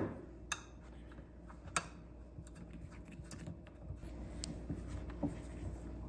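Faint scattered clicks and light taps as a plastic caster wheel is handled and a small wrench is fitted to the nut on its hub, over a low steady hum.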